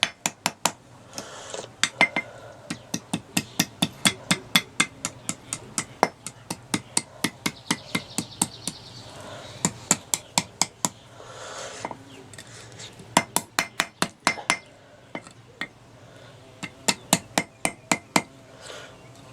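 Hand hammer striking a hot horseshoe nail on an anvil, light quick blows at about three a second in runs with short pauses, taking a bend out of the hook.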